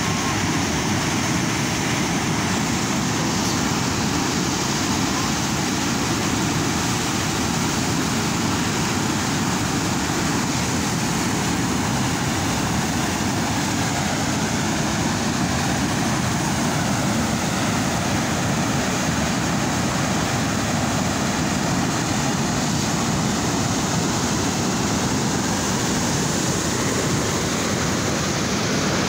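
Canal water pouring over a concrete weir and churning white in the basin below: a loud, steady rush.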